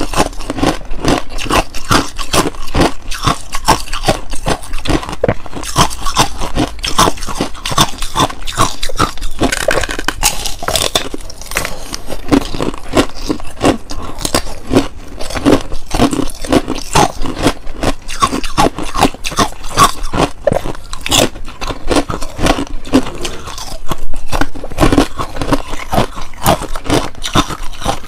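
Ice being bitten and chewed close to the microphone: a continuous run of sharp crunches and crackles, many bites a second.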